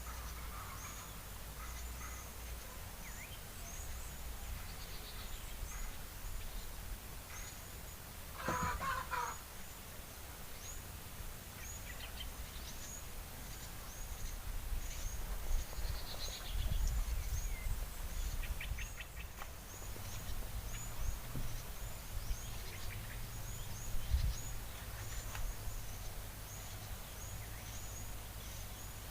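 Birds calling around a fruiting tree: a steady run of short, high chirps about once a second, with a louder call about eight to nine seconds in and a few fainter calls scattered through. A low rumble of wind on the microphone lies beneath.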